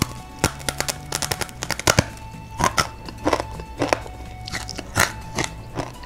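Crunchy dried flour-stick snacks (lidi-lidian) bitten off and chewed, making a quick irregular run of sharp crunches, with soft background music underneath.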